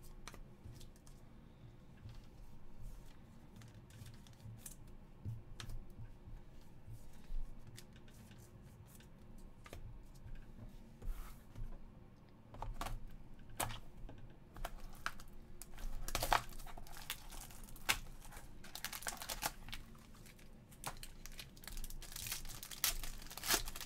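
Hands opening a hockey trading-card box and pack: scattered clicks and scrapes of card and cardboard, then, from about halfway in and thicker in the last third, the crinkling and tearing of a card pack's wrapper being ripped open.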